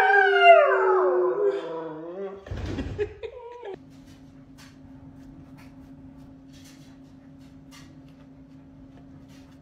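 A husky howling, one long drawn-out howl that slides down in pitch over about two and a half seconds, followed by a shorter yowl. After about four seconds there is only a faint steady hum.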